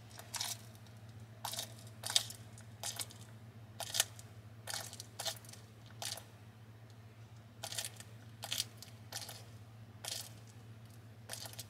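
Bearded dragon chewing a live giant horned hissing cockroach, its jaws crushing the roach's hard shell: about thirteen crisp crunches at uneven intervals. A low steady hum runs underneath.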